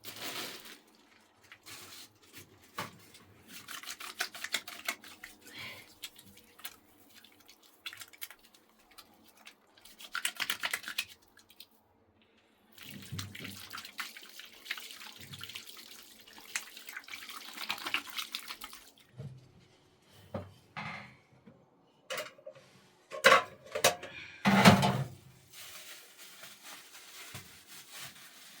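Water splashing and pouring in several spells, with a few sharp, loud knocks or clatter a little before the end.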